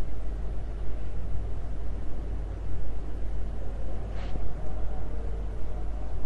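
Steady low rumble with fluctuating background noise, and a short hiss about four seconds in.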